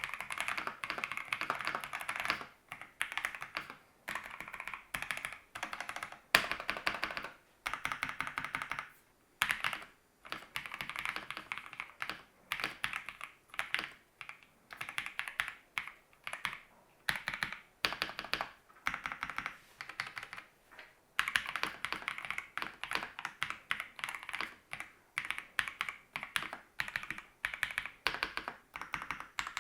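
Typing on the Keychron V6 Ultra 8K, a full-size mechanical keyboard, as a sound test of its switch variants (Banana, Red and Brown). Quick runs of keystroke clicks come in bursts of a second or two, with short pauses between them.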